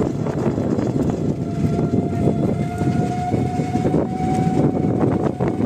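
Riding in an open electric rickshaw (toto): body rattle and road rumble with scattered knocks, joined about a second and a half in by a steady high whine.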